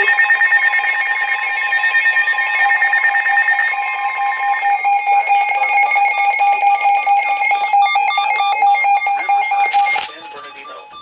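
Several electronic emergency alert tones for a flash flood warning, sounding at once as steady pitches with a fast warble. The loudest cuts off suddenly about ten seconds in, leaving a fainter tone.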